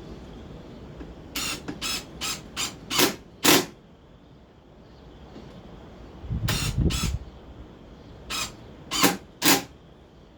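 Brad nailer firing into wood: six quick shots in the first few seconds, a short low rumble around the middle, then three more shots near the end.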